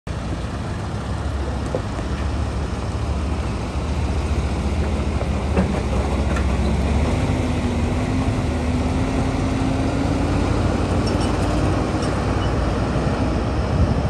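Heavy diesel engine of the bulldozer-hauling equipment running with a deep, steady rumble, a faint whine rising slowly in pitch through the second half.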